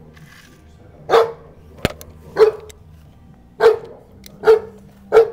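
Newfoundland dog barking in play at a toy car: five single barks about a second apart, coming a little quicker near the end. A sharp click falls between the first and second bark.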